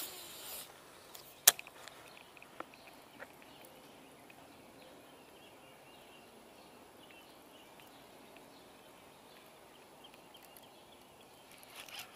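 Baitcasting fishing reel handled at the water's edge: a short hiss at the start, one sharp click about a second and a half in, then a few lighter ticks. Faint steady outdoor background follows, with small handling clicks returning near the end.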